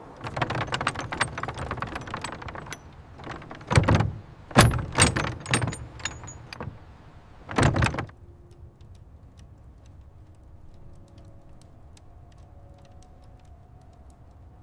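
A rapid run of light clicks and rattles lasting about two seconds, then several heavy knocks in the middle and a last one about eight seconds in.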